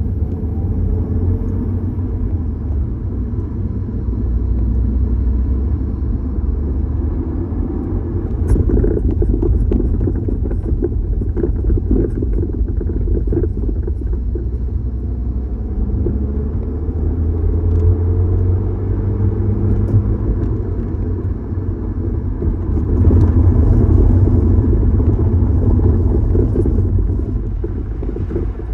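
Mini Countryman on the move: a steady low road and engine rumble with a series of short knocks, thickest about a third of the way through, from the rear of the car. This is the rear knocking noise that the owner is trying to trace.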